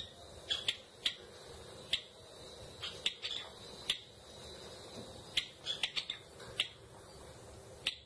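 Java sparrow giving short, sharp chip calls, about a dozen irregularly spaced notes with some in quick clusters.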